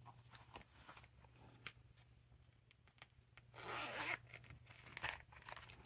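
Zipper on a leather ring planner's zip pocket drawn in a short rasp about three and a half seconds in, with a shorter stroke a second later. Faint taps and rubbing of hands on the leather around it.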